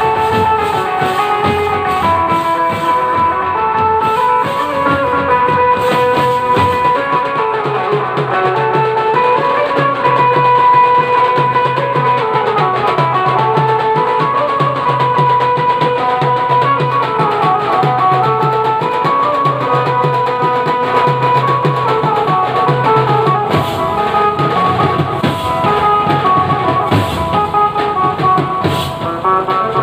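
Tasha party drum band playing: large steel-shelled drums and tasha drums beating a fast, steady rhythm, with a melody line played over the drumming.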